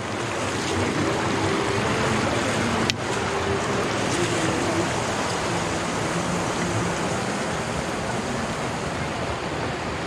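Shallow stream running over rocks: a steady rushing hiss of water.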